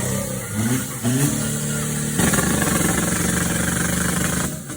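Off-road 4x4 competition vehicle's engine revving in short rising blips, then held at high revs steadily for about two seconds before dropping off near the end.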